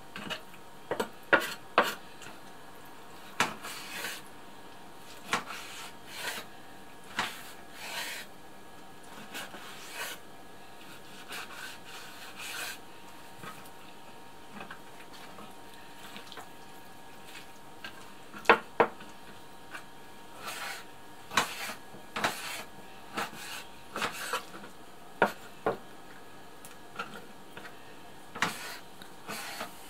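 Kitchen knife cutting raw chicken thigh on a wooden cutting board: irregular knocks of the blade against the board, some in quick pairs, as the meat is sliced into pieces.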